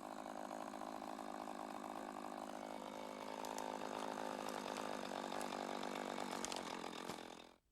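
Chainsaw running steadily for about seven seconds, then cutting off abruptly.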